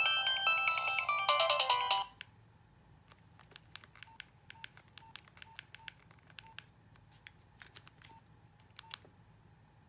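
Nokia 2115i ringtone playing a bright electronic melody that cuts off about two seconds in. Then faint, irregular clicks, several with a short beep, for about seven seconds.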